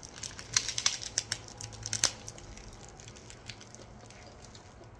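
Crisp nori sheet of a rice onigiri crunching as it is bitten and chewed: a quick run of crackles over the first two seconds or so, then softer chewing.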